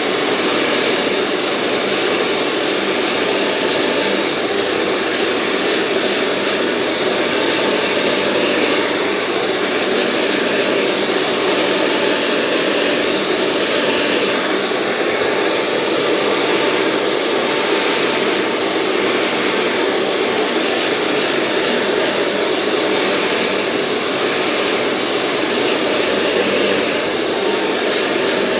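Hair dryer blowing a steady rush of air during a blow-dry, swelling slightly now and then.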